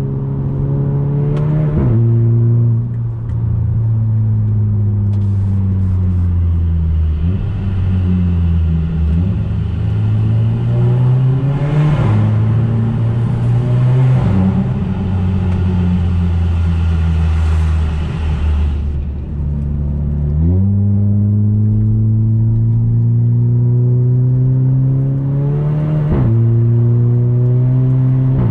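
Audi A3 2.0 TFSI turbocharged four-cylinder with a 2.5-inch downpipe and catback exhaust, heard from inside the cabin, accelerating hard through the gears: the pitch climbs, then drops sharply at each upshift of the S tronic (DSG) gearbox with a short blat from the exhaust, about two seconds in and twice near the end. In the middle stretch the car is in a tunnel, where the sound has more hiss and echo.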